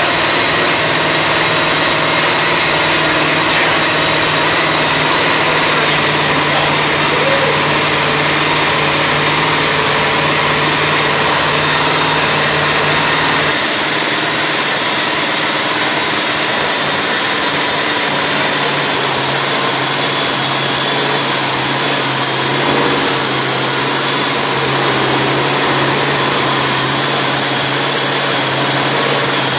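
Freshly rebuilt carbureted V8 engine running steadily on an engine run stand after its rebuild. The sound is loud and even, and the low rumble drops away about halfway through.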